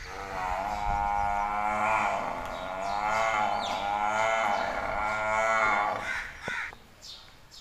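Water buffalo lowing: one long call of about six seconds that wavers in pitch, with birds calling faintly in the background.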